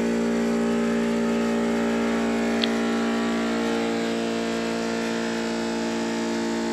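Battery-powered Aquarobo 919 diving hookah compressor running with a steady hum, pumping air to pressurize its breathing hose. A higher tone in the hum grows stronger about halfway through.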